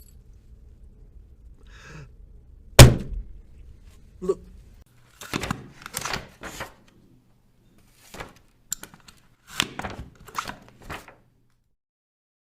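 Punch sound effects: a series of sharp hits and thuds. The loudest single hit lands about three seconds in, followed by clusters of quicker punches, after which it goes silent near the end.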